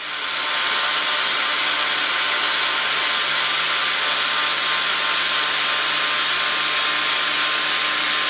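Angle grinder with a flap disc grinding the rusty, gnarly edge of a swivel hub housing to clean up the mating surface for a new dust seal. It starts right at the beginning and runs steadily, a steady whine under the grinding hiss.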